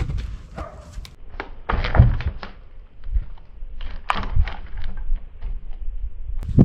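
A run of irregular wooden thunks and knocks, as cut pieces of fruit-tree firewood are handled and dropped, loudest about two seconds in; no chainsaw is running.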